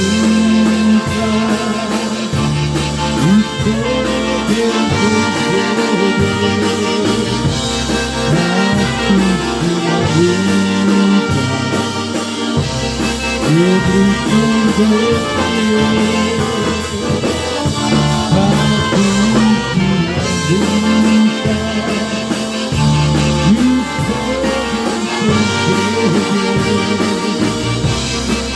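Polka band playing an instrumental section: brass and saxophone over a steady drum beat and a moving bass line.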